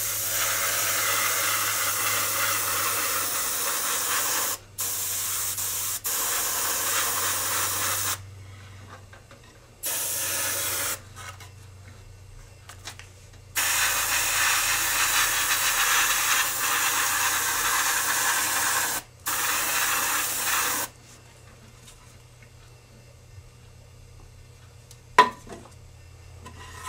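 Siphon-feed airbrush spraying thinned rust-coloured paint in about five bursts of hiss, each a second to five seconds long, with short breaks between them. The spraying stops about two-thirds of the way through, and there is one sharp knock near the end.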